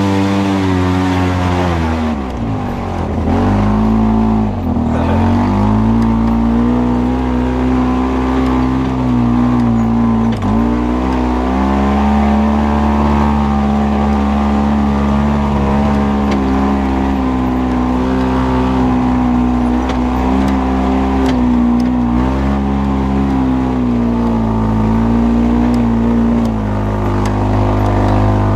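Off-road vehicle engine running hard under load, its pitch dipping and climbing back up several times in the first dozen seconds, then held at high revs.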